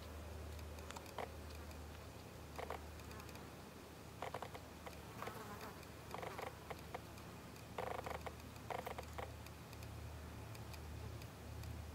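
Flying insects buzzing briefly around the flower heads in a handful of short, irregular bursts, over a faint low hum.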